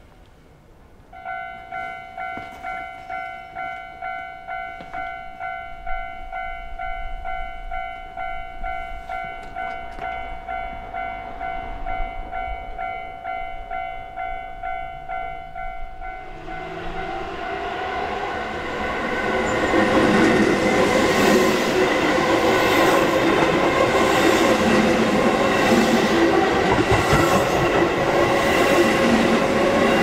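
Japanese level-crossing warning bell ringing in steady repeated strikes, about two a second, starting about a second in: the crossing is closing for an approaching train. From about halfway through, a Keihan Main Line electric train approaches and then passes close by, with a loud rumble and wheel clatter.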